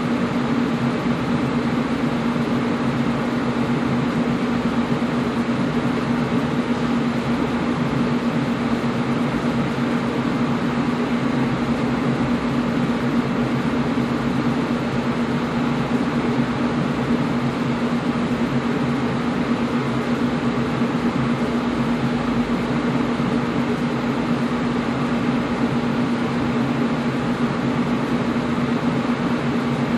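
Air conditioner running steadily: an even rush of fan noise with a constant low hum underneath.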